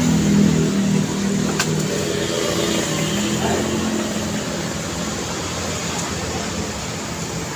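Road traffic on a city street: a vehicle engine running close by fades away over the first few seconds, leaving a steady traffic hum. A single sharp click comes about one and a half seconds in.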